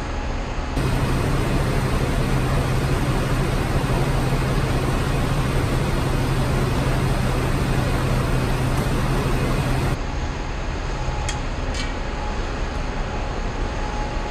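Jet wash (pressure washer) spraying a bus, a steady hiss of water over the low hum of machinery. From about a second in until about ten seconds it is louder, with a strong steady hum; a few sharp ticks follow.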